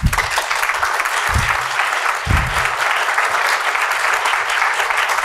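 Audience applauding steadily: many hands clapping together in a dense, even patter.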